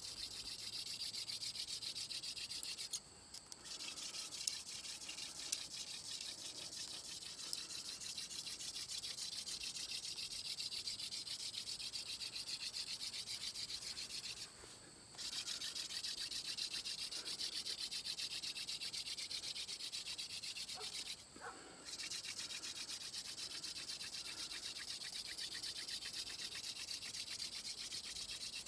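Hand-drill friction fire: a wooden spindle spun rapidly back and forth between the palms, its tip grinding in the socket of a wooden hearth board with a dry, scratchy rubbing. The drilling breaks off three times, briefly each time, as the hands go back to the top of the spindle.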